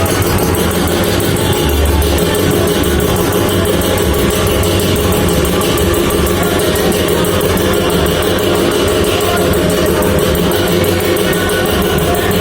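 Background music with guitar, playing steadily throughout.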